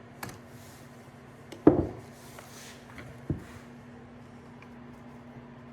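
Two hammer knocks on engine parts, the first loud with a short ring and the second lighter about a second and a half later, over a faint steady hum.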